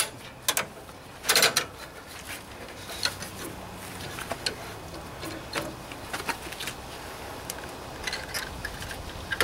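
Scattered metallic clicks and clinks of vise-grip pliers and a tension spring being worked into place on a riding mower's transaxle linkage, with the loudest clacks about a second in.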